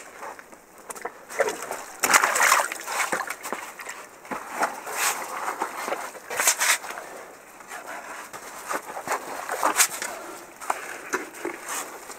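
Digging in wet, muddy soil: irregular squelches, scrapes and crunches as a shovel and gloved hands pull mud and debris apart, loudest about two seconds in.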